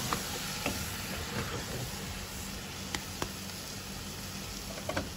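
Chicken and tomato curry sizzling steadily in a stockpot as the tomato cooks down, with a few sharp ticks through it.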